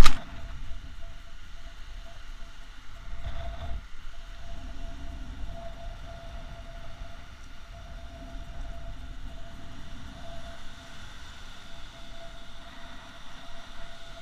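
Wind rumbling on the microphone over surf washing onto a sandy beach, a steady low noise with a faint constant tone running through it.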